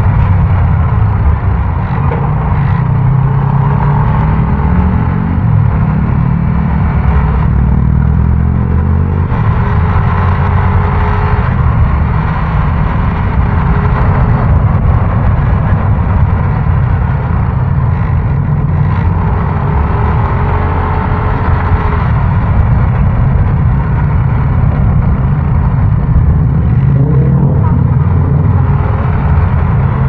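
Yamaha Aerox 155 scooter's single-cylinder engine running on the move in city traffic, its note rising and falling with the throttle over road noise.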